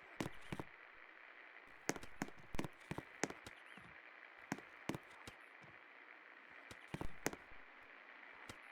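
Best Electric Works Jewel ceiling fan running with a faint steady whir, with irregular sharp clicks and taps through it.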